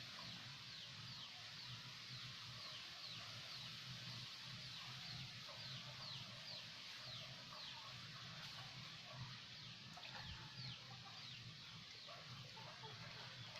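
Faint outdoor ambience: a steady low hum under a run of short, high, falling chirps, about two a second, from small birds or insects, with scattered fowl-like clucks.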